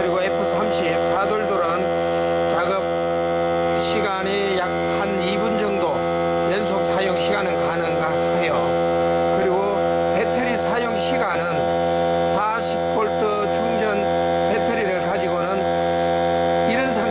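Greenworks 40-volt cordless air compressor running steadily on its battery, a constant hum that holds one pitch.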